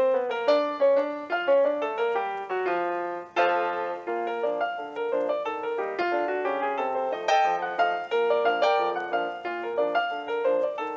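Background piano music: a steady run of notes with no speech.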